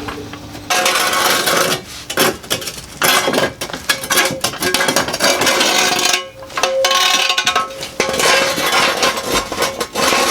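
Busy metallic clattering and scraping, with short breaks, as the front of the vehicle is raised on a jack and set on jack stands.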